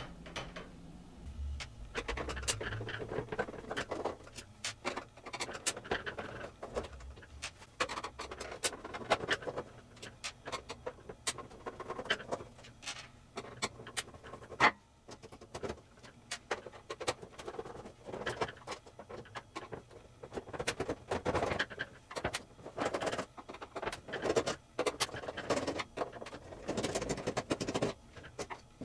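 Screwdriver backing screws out of the plastic underside of a Roland ED PC-300 MIDI keyboard, with irregular clicks, short scrapes and handling knocks on the case as it is opened, and one sharper knock about halfway through.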